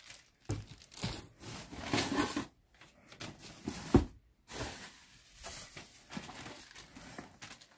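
Packaging rustling and crinkling in irregular bursts as kitchen utensils are handled and unwrapped, with one sharp click about four seconds in.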